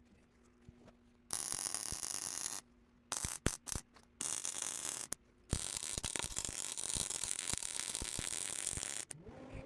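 Miller welder's arc crackling as weld beads are laid on a rear axle housing's spring perch. It comes in runs that start and stop with the trigger: a short bead, a few quick blips, then a long bead of about three and a half seconds. A low steady hum sounds between the beads.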